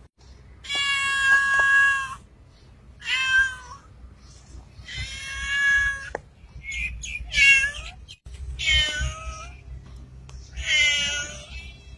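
Ginger tabby cat meowing over and over: about six meows, each half a second to a second and a half long, a second or two apart, the first one the longest.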